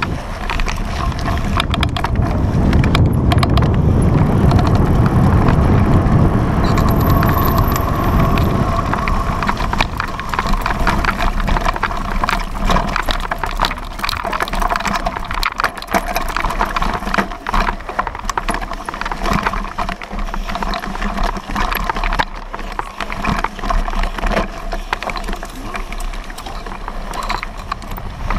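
Mountain bike ridden fast over a rough gravel and dirt track, picked up by a handlebar-mounted action camera. Wind buffets the microphone heavily for the first several seconds, over a constant clatter of the bike and mount rattling across the bumpy ground.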